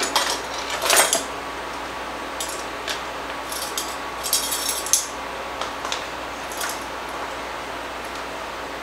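Metal measuring spoons clinking and jangling on their ring as a spoonful of black pepper is measured out. There are several light clinks, then a longer jingle about four seconds in.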